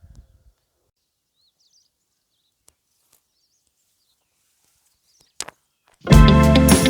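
Near silence with a few faint bird chirps and a couple of soft clicks, then background music cuts in suddenly near the end.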